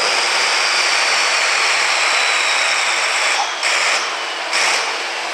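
Farm stock pulling tractor's diesel engine running hard, hooked to the pulling sled, loud and coarse with a faint whine that slowly falls in pitch. The sound dips briefly a few times near the end.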